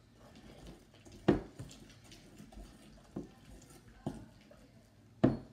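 Sticky slime being stirred in a stainless steel bowl, the stirring stick knocking sharply against the bowl four times, loudest about a second in and again near the end.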